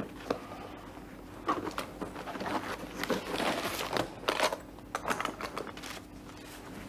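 Rustling and crinkling handling noises in irregular bursts as a seated man fidgets with his coat and hat, over a faint steady hum.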